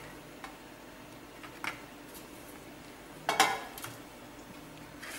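A few light taps on a plate and one brief louder clatter about three and a half seconds in, as ladoos are set down and the plate is handled.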